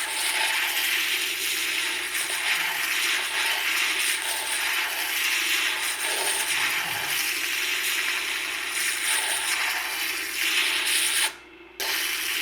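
Turquoise cabochon ground with light pressure against a spinning, water-fed 180 mesh diamond disc on a lapidary grinding and polishing machine: a steady gritty grinding hiss, which cuts out briefly near the end.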